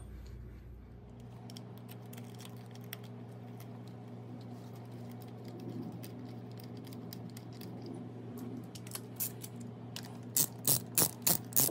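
Hand ratchet clicking as a bracket bolt is run in: faint scattered clicks of handling at first, then loud, sharp, quick regular strokes of about three a second near the end. A steady low hum lies underneath.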